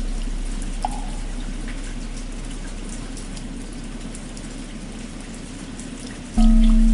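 Steady rain with drops ticking, under the fading hum of a struck bell. A single short wooden fish knock comes about a second in, and near the end the bell is struck again and rings out loudly.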